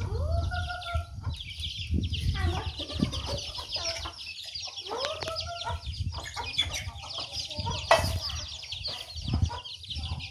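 Domestic hens calling and clucking, with two drawn-out calls, one near the start and one about five seconds in, over constant high peeping from chicks. A single sharp knock about eight seconds in.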